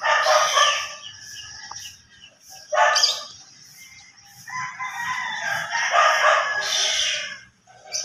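Rooster crowing: one long crow in the second half, after two shorter loud calls, one at the start and one about three seconds in.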